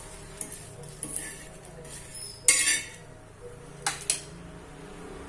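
A metal spoon stirring and scraping in a cooking pan, with a handful of short clinks and scrapes against the metal. The loudest comes about halfway through, and two come close together a little later.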